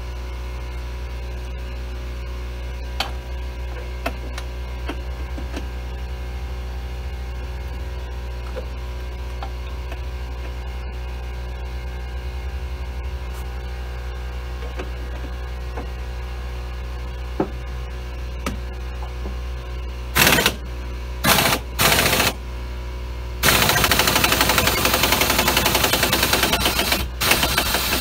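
Pneumatic impact wrench rattling: two short bursts, then one long burst of about four seconds near the end, loosening the 11 mm bolts that hold the drum brake hub assembly to the rear trailing arm. Underneath, a steady low hum from a running air compressor.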